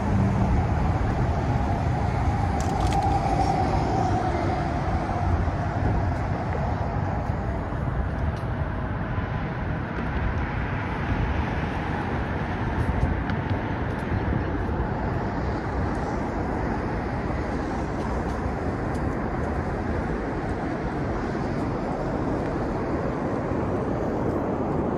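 Steady low rumble of a moving vehicle, with a faint tone that dips slightly in pitch during the first few seconds.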